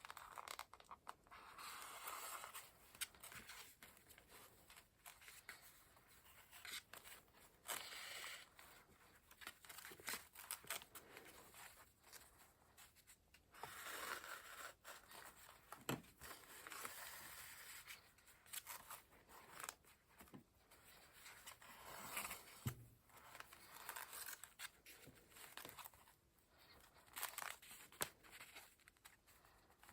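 Paper and craft materials being handled while a junk journal page is finished: intermittent rustling and scraping with scattered small taps and clicks, at a low level.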